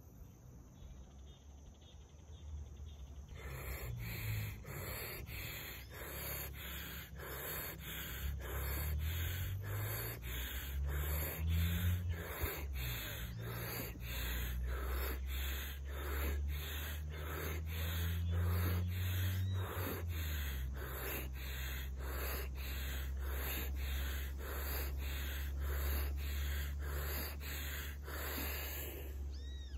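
A man's rapid breathing exercise: forceful breaths through the mouth in a quick, even rhythm of about three breath sounds every two seconds. It starts about three seconds in and stops just before the end.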